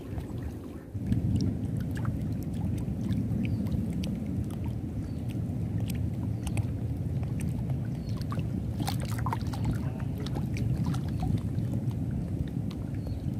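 Waterside outdoor ambience: a steady low rumbling noise of rippling water and breeze, which grows louder about a second in. Scattered light ticks and a few faint bird chirps sit above it.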